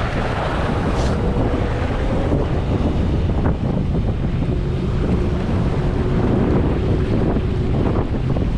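Wind buffeting the microphone over ocean surf, as a steady rushing noise, with a faint steady hum at times.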